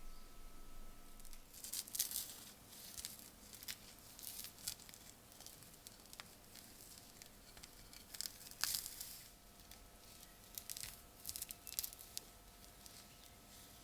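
Irregular scraping and crinkling handling noises in short scattered bursts, the loudest about two seconds in and near the middle, with a faint steady hum underneath.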